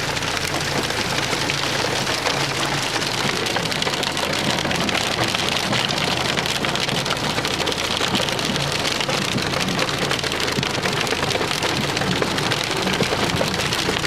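Hailstones drumming thickly and steadily on a car's body in a heavy hailstorm, a dense rattle of countless small impacts, with a steady low hum underneath.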